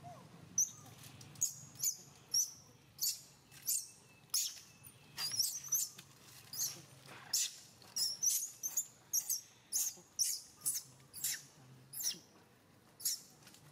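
Newborn long-tailed macaque crying in a rapid series of short, high-pitched squeals, about two a second: a distress call to its mother.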